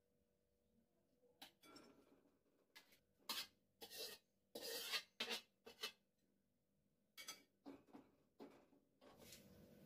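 Faint, scattered scrapes and clinks of a metal spatula against a wok as cooked chicken is scooped and tipped into a glass bowl, with near silence between them.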